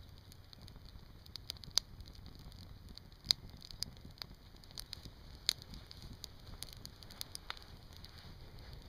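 A small wood fire of resinous pine cones and hazel feathersticks crackling in a stainless steel Honey Stove, with irregular sharp pops; the loudest come about two, three and a half and five and a half seconds in.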